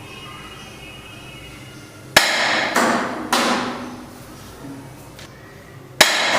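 Sharp hard-plastic knocks from a toy Uzi gun: one about two seconds in, followed quickly by two more, and another near the end.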